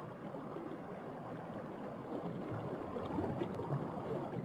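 Fast-flowing stream water rushing in a steady, even wash.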